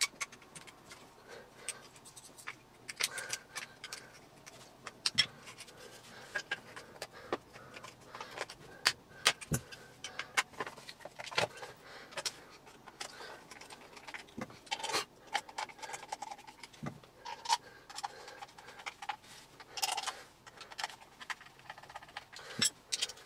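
Irregular clicks, taps and light clatter of small screws and plastic parts as a Miele S2111 vacuum cleaner's motor housing is put back together by hand, with a screwdriver now and then.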